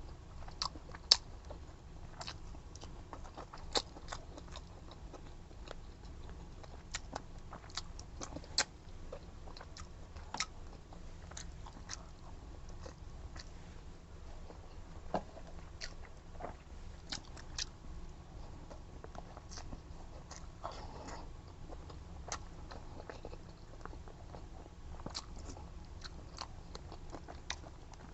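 A person eating and chewing close to the microphone, with irregular sharp clicks and smacks scattered throughout.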